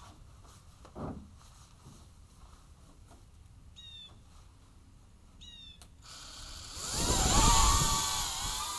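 Small 2.5-inch 3S cinewhoop quadcopter's motors and propellers spooling up about seven seconds in, settling into a steady high whine with a rush of prop wash. Before that it is quiet, with a soft thump about a second in and two short chirps.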